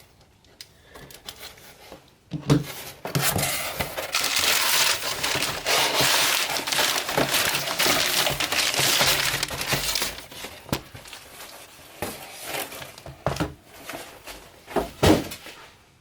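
Packaging being opened and handled: several seconds of loud crinkling and tearing of wrapping material, then scattered clicks and rustles.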